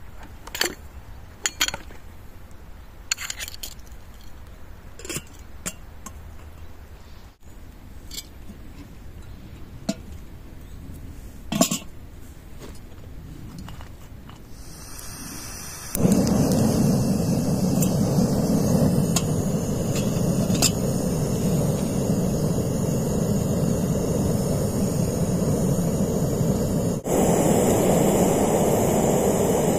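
Sparse light clinks and knocks of tea-making gear being handled. About halfway through, a loud steady rushing noise starts abruptly and carries on, with a brief break near the end.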